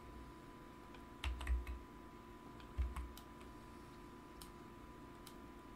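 Computer keyboard keys and mouse buttons clicking: scattered clicks, with two short clusters carrying a dull knock about one second and about three seconds in, over a faint steady hum.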